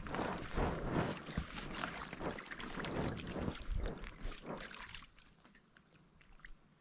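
Water sloshing and splashing as a person climbs onto an inflated air mattress floating on the water, in a run of irregular splashes and scuffs that dies down about five seconds in as the mattress settles.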